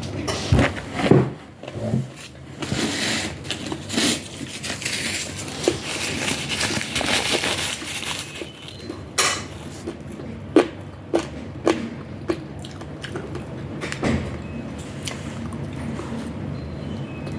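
Close-miked eating of chicken wings and rice: wet chewing and biting with irregular smacking noises, and scattered sharp clicks of cutlery against dishes.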